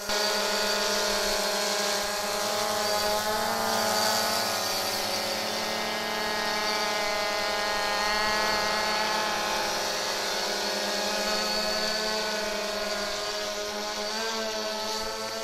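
DJI Phantom Vision+ quadcopter hovering close by: its four propellers give a steady, loud buzzing whine made of several pitches that wobble slightly as it holds position.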